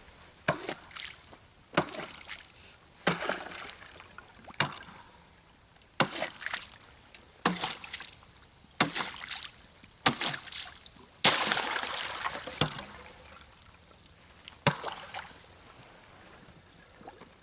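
Thin pond ice being broken at the water's edge: about ten sharp cracks with splashes, roughly one every second and a half, and a longer crunching splash about eleven seconds in.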